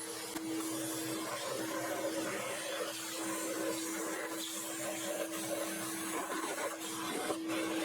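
Shop vac running steadily with a constant hum under its rushing air, sucking dirt out of the engine's intake ports before the mid intake manifold goes on.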